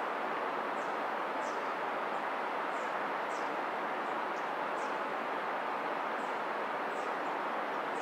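Steady rush of a flowing river, with high, thin bird chirps about once a second over it.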